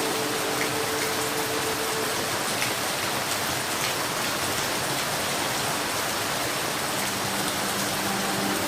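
Steady rain falling: a dense, even hiss of drops, with occasional sharper drop taps standing out.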